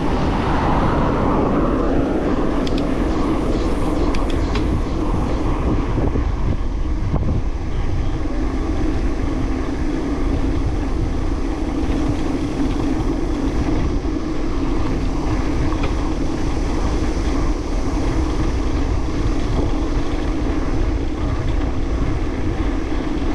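Steady rush of wind over a GoPro's microphone with rumble from a road bike rolling along, a little louder in the first couple of seconds.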